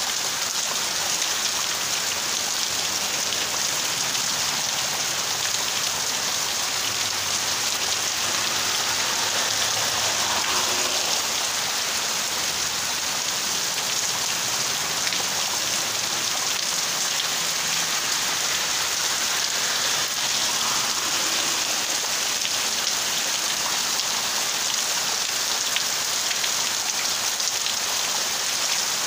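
Heavy rain pouring steadily, a dense, even hiss of falling drops.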